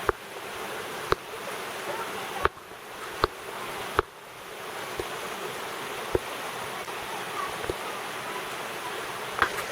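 Creek water running steadily, with several sharp knocks scattered through. The loudest knocks come near the start and about four seconds in.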